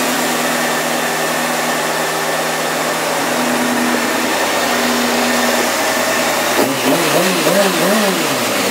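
2005 Honda CBR600F4i's inline-four engine idling steadily, then revved in a quick series of throttle blips, the pitch rising and falling several times, near the end.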